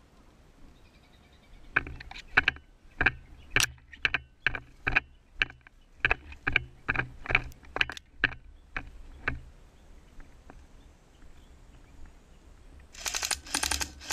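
Tokyo Marui Type 89 airsoft electric gun firing single shots, about two a second for several seconds. After a pause comes a short, rapid burst near the end.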